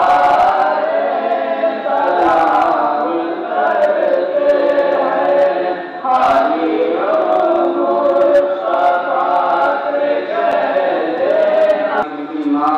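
A group of voices chanting a devotional salaam in unison, in long drawn-out sung phrases with a short pause about halfway through.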